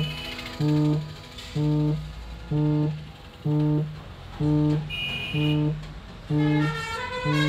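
Music: the same low note repeated about once a second, with a higher plucked melody coming in near the end.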